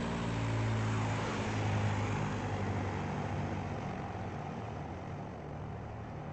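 Lockheed P-38 Lightning's twin Allison V-12 piston engines running steadily in flight, a propeller-plane drone that slowly fades.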